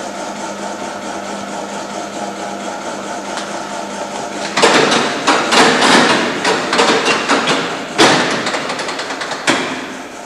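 A steady hum, then from about four and a half seconds in a bank of electromechanical relays clattering rapidly for about five seconds, with one sharp clack near the eighth second, as they switch the lights of an illuminated mimic display board.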